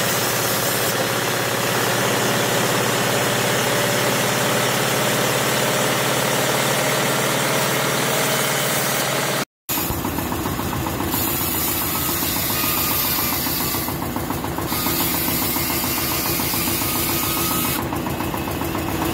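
Large belt-driven sawmill band saw running steadily while ripping wood, first planks and then a log. A loud, continuous mechanical drone that cuts out briefly about halfway through.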